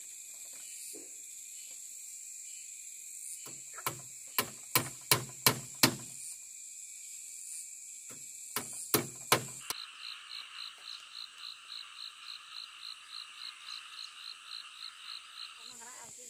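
Hammer blows on wood in two quick runs, about six strikes and then three, over a steady high-pitched drone. After that, an animal call pulses steadily at about four beats a second for some six seconds.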